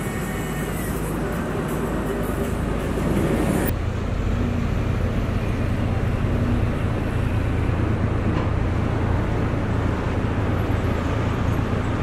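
Road traffic noise for the first few seconds. Then, after a sudden change about four seconds in, the steady low drone of diesel road-construction machinery running: a pneumatic-tyred road roller and an asphalt paver at work on fresh asphalt.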